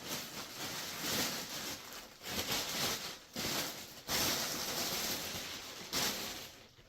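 Plastic packaging crinkling and rustling in several stretches as the wrapped memory foam dog bed insert is opened and unfolded.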